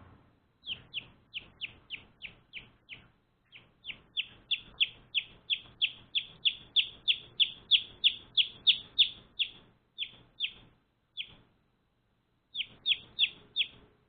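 Day-old baby chicks peeping: short, high chirps, each falling in pitch, at about three a second. The chirps come in runs, with a pause about three seconds in and sparse chirps with a longer gap after about ten seconds.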